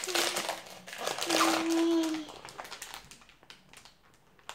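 A foil blind-bag packet crinkling as it is handled and pulled at, with a voice over it in the first two seconds. Fainter rustles follow, and there is a sharp click near the end.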